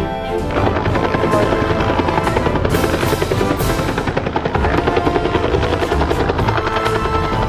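Bell UH-1 Huey helicopter hovering, its two-blade main rotor beating steadily. It comes in about half a second in, under background music.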